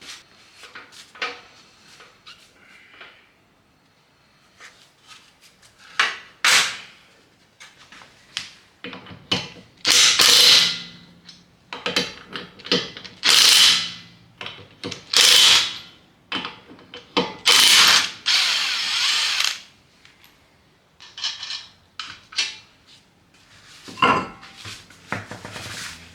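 Mechanic's tools working on the car's drive belt: scattered ratchet clicks, then several short runs of a power tool lasting about a second each.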